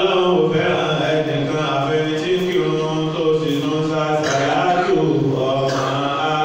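A man chanting a slow religious melody into a microphone: one continuous phrase of long held notes that waver slightly in pitch.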